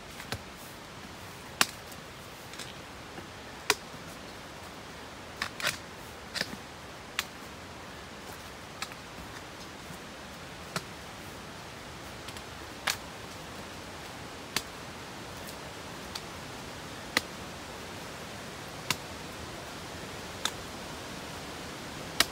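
A hiker walking a rocky, leaf-covered trail: sharp clicks of the steps or gear striking rock, one every one to two seconds, over a steady hiss.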